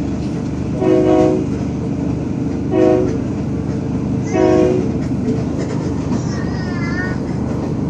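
Train running with a steady rumble, heard from inside a carriage, while the train's horn sounds three short blasts: about a second in, near three seconds, and about four and a half seconds in.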